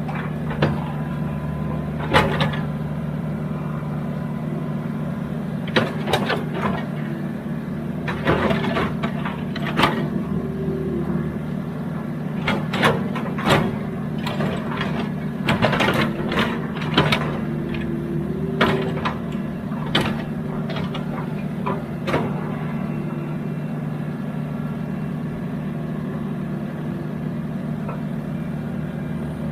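Excavator's diesel engine running steadily, with a string of sharp knocks and clanks through the middle of the stretch that then die away.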